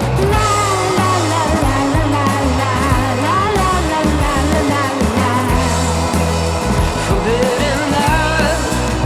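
Background song with a sung vocal melody over a steady bass line.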